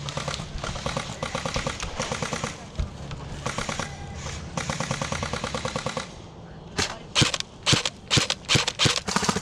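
Airsoft guns firing: rapid full-auto bursts, four strings one after another, then from about two-thirds of the way in louder, closer shots a few per second.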